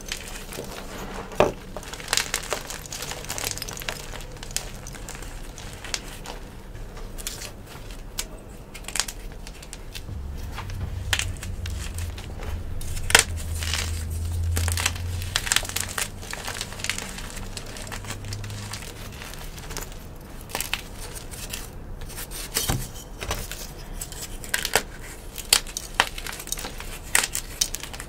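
Chunks of yellow-dyed gym chalk crushed and crumbled between bare hands: continuous crunching and crackling, with many sharp snaps as pieces break apart.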